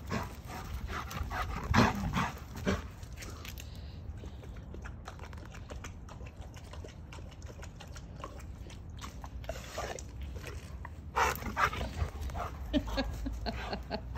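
Bouvier puppy making short happy vocal noises while running zoomies: a loud one about two seconds in, then a cluster of them from about eleven seconds on.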